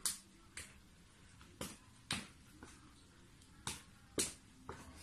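Hands slapping hands in a slapping game: a string of sharp smacks, about eight, unevenly spaced.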